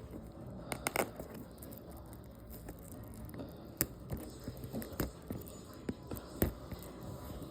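Packaging of a DVD box set being handled and opened by hand: scattered clicks, crinkles and scrapes of plastic and cardboard, with a few sharper clicks spread through.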